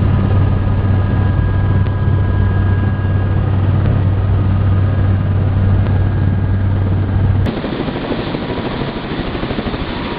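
Helicopter rotor and engine noise with a steady low drone. About three-quarters of the way through it changes abruptly to a rougher, noisier rush without the drone.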